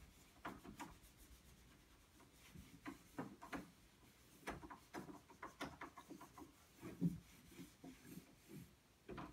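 Faint, irregular rubbing and light taps of handling: a hand moving small Lego pieces about on carpet.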